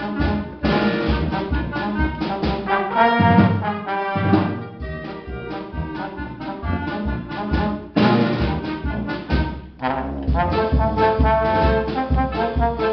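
Wind band playing, with brass and saxophones holding chords over a steady drum beat. The music drops away briefly about ten seconds in, then comes back in full.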